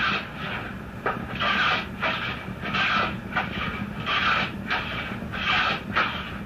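Hand tool shaving or scraping a wooden stick in quick repeated rasping strokes, about one and a half a second.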